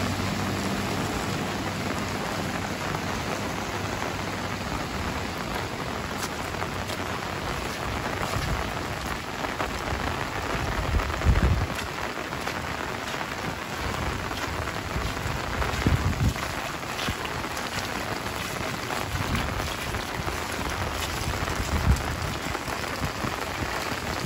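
Heavy rain falling steadily on a wet asphalt road and roadside vegetation, an unbroken hiss of rain. A motorbike engine fades away at the start, and three short low thumps stand out, about five seconds apart.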